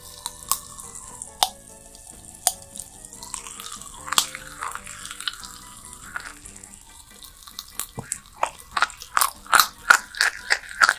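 Red popping candy crackling in an open mouth: scattered sharp pops at first, coming quicker and louder from about eight seconds in.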